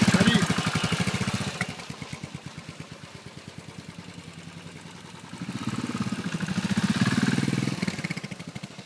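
Royal Enfield Continental GT 535's single-cylinder four-stroke engine pulling away and riding off: loud at first, dropping after a second or two, rising again for a few seconds about halfway through, then fading.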